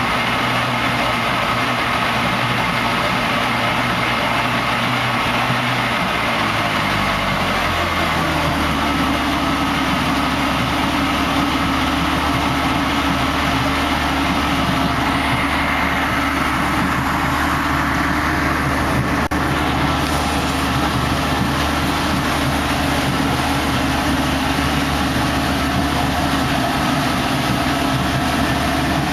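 1979 Johnson 100 hp two-stroke V4 outboard idling steadily. About seven seconds in its idle speed drops a step lower, then it runs evenly.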